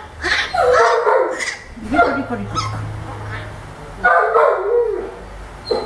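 Baby howler monkey giving repeated high crying calls in bursts of about a second, protesting at being restrained and injected.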